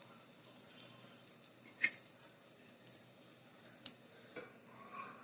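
Faint kitchen handling sounds of crab masala fry being spooned from the pan into a serving bowl: soft scrapes and two sharp clinks of the spoon against the cookware, about two seconds apart.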